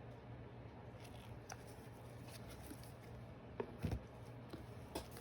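Trading cards being handled and shuffled by hand: scattered faint light taps and clicks of cards, with a soft thump a little under four seconds in, over a faint steady hum.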